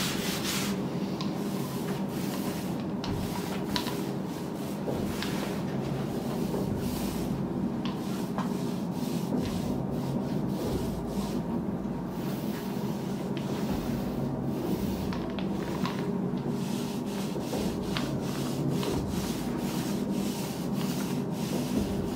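A small paint roller rolling a clear finish over a pine end-grain board, a repeated rubbing and swishing of the roller against the wood, over a steady low hum.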